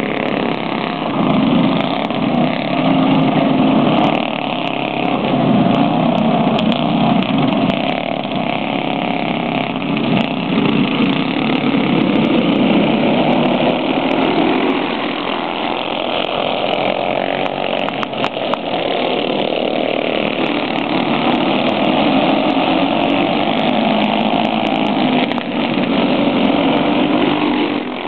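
A pack of dirt-track racing karts with small single-cylinder OHV clone engines racing round the oval, their combined engine noise swelling and fading as they come by and move away.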